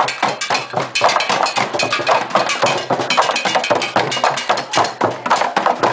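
Street percussion band drumming with wooden sticks on empty plastic water jugs and barrels: a dense, fast rhythm of many overlapping strikes.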